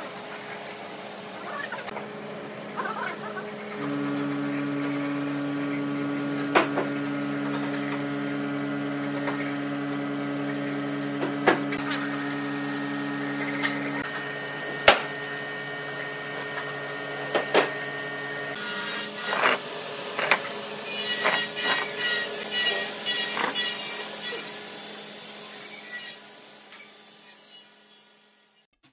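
Compressed-air spray gun hissing as finish is sprayed onto pine furniture, over a steady motor hum, with a few sharp knocks. About two-thirds of the way in the hum drops away and a brighter hiss takes over, fading out near the end.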